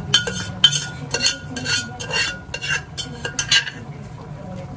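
Metal spoon scraping against a cooking pot while stirring, about two strokes a second for some eight strokes, stopping a little before the end.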